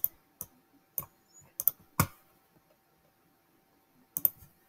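Scattered clicks of a computer mouse, about eight in all, some in quick pairs, with a pause of about two seconds before the last few.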